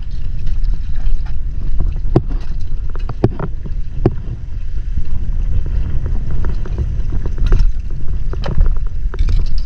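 Wind buffeting the microphone in a steady low rumble, with several sharp knocks and scrapes through it as a hooked stingray is dragged and flops across rough rock.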